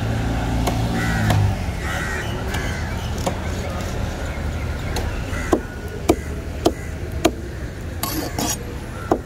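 A heavy cleaver chopping yellowfin tuna into cubes, each stroke a sharp knock of the blade on the wooden chopping board. There are a few scattered chops, then a quick run of four about half a second apart in the second half.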